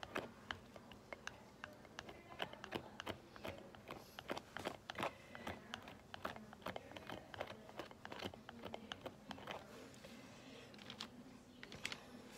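Metal palette knife tapping and scraping cold wax and oil paint onto a painting panel: a faint, irregular series of light clicks and scrapes, sparser toward the end.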